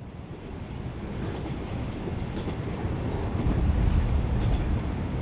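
Train sound effect: a train running on its rails, a steady low noise that swells in and grows louder, peaking near the end.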